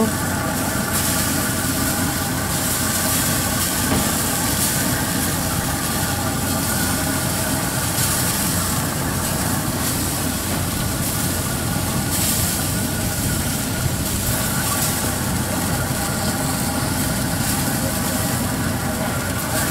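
Freight train passing, its diesel locomotive engine running steadily.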